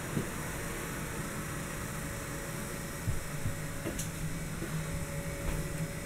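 Steady machine hum with a faint high whine, broken by a few soft knocks, the clearest about three seconds in.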